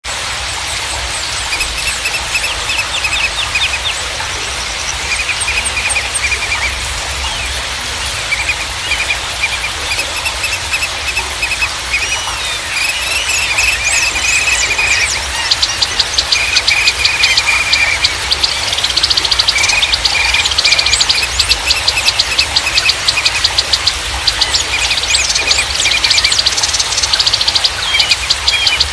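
Small songbirds chirping in short repeated trills over a steady background hiss, with rapid high chittering joining in from about halfway.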